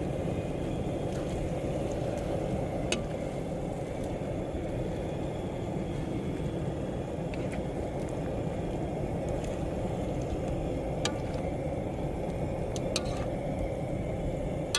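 Portable gas camp stove burner running steadily, with a few brief sharp clicks of a utensil against the pan while shrimp cooks.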